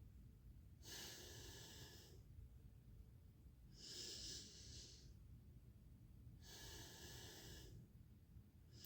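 Faint, slow deep breaths of bhastrika pranayama, drawn and released through the nose without force: three breaths, each about a second long, a couple of seconds apart.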